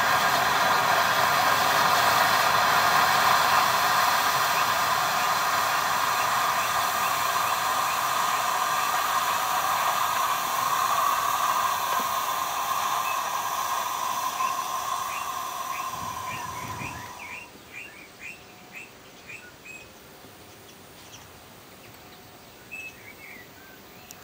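Glycine–ferric nitrate gel burning in a glass beaker in solution combustion synthesis: a steady hiss of gas evolving as the red-hot ferric oxide forms. The hiss fades and cuts out about two-thirds of the way through as the reaction burns out, leaving only faint short chirps.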